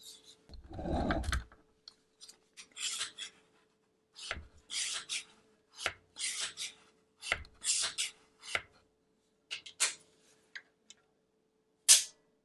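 All-plastic BV mini bike pump worked by hand on a Schrader tyre valve: a run of pump strokes, each a short rasping hiss of air and sliding piston, about one every second or so, several set off by a small click. A heavier knock about a second in.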